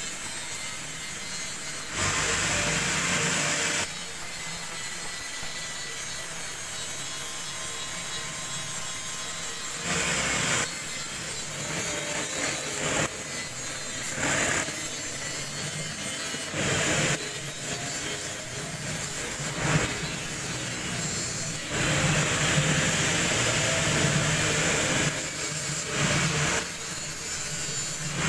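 Electric soap-and-paint mixer running, its motor turning the stirring shaft in a plastic drum of liquid: a steady mechanical running noise with several louder stretches lasting a few seconds.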